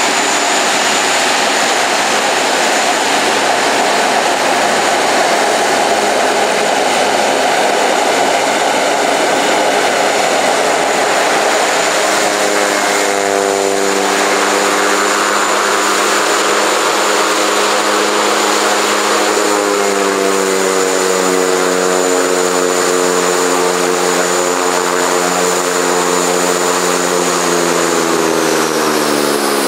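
The twin Pratt & Whitney PT6A turboprop engines of a Beechcraft King Air 250 running at taxi power: a steady propeller drone under a high turbine whine. From about halfway the drone turns into a clearer buzzing hum, and near the end the whine and the hum both slide down in pitch.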